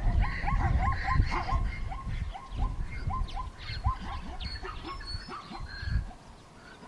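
An animal giving a quick series of short, rising chirping calls, about three a second, that thin out after a few seconds, over a low rumble that fades near the end.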